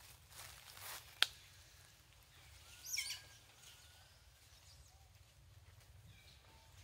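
Faint outdoor ambience with scattered bird chirps, a single sharp click a little over a second in, and a short high-pitched call about three seconds in.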